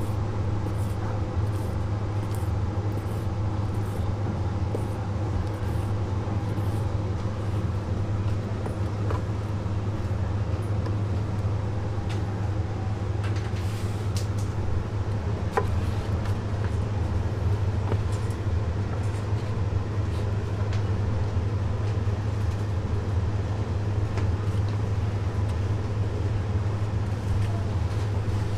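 A large kitchen knife slicing braised pig's trotters on a wooden cutting board, heard as faint, fairly regular clicks of the blade. Under them runs a steady low hum.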